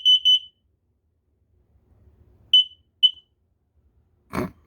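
Kidde KN-COSM-BA combination smoke and carbon-monoxide alarm's piezo horn ending its test cycle: a quick run of shrill beeps that stops abruptly, then about two seconds later two single beeps half a second apart. Near the end there is a brief soft thump.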